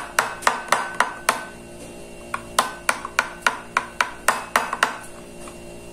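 Kitchen knife chopping a slab of tempeh on a hard surface, each cut a sharp knock, about three to four a second. The cuts come in two runs: a short one, then after a pause of about a second a longer one of around ten cuts.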